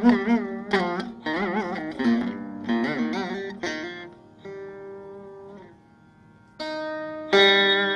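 Veena playing raga Mohanam: a run of plucked notes, many bent with oscillating pitch ornaments (gamakas), over a steady drone string. The notes ring down to near quiet around six seconds in, then fresh plucking resumes.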